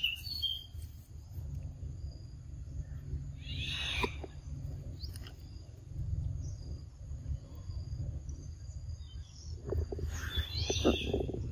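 Three short high-pitched animal calls a few seconds apart, over a steady high insect drone and a constant low rumble. A run of soft clicks comes near the end.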